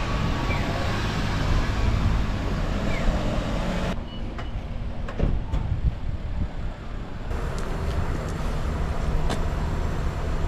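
Outdoor street sound: road traffic running past, with low wind rumble on the microphone. The sound changes abruptly twice, at about four and seven seconds in, and is thinner with a few light clicks in the later part.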